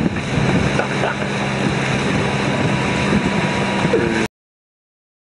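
Wind noise on the microphone over choppy water, with the steady low hum of a motorboat engine underneath. The sound cuts off suddenly about four seconds in.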